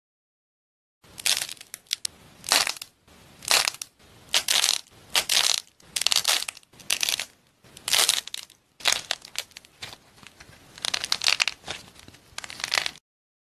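Crunching and crackling as fingers squeeze and break apart brittle coffee-bean-shaped objects with a crumbly filling, in a series of crisp crushes roughly one or two a second, starting about a second in.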